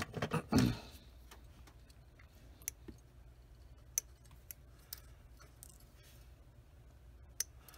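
Hand sprue cutters snipping small parts off a plastic model-kit sprue: a scatter of single sharp clicks a second or so apart, the sharpest about four seconds in and near the end.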